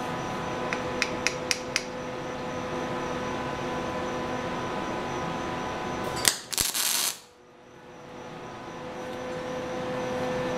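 A running machine hums steadily in a metal shop, with four light metallic clicks in the first two seconds. About six seconds in comes a sharp crack and a short, loud hiss, after which the hum drops away and slowly builds back.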